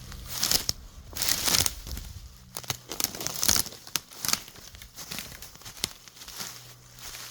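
Footsteps crunching through dry leaves and brush, a series of loud crackling rustles roughly a second apart.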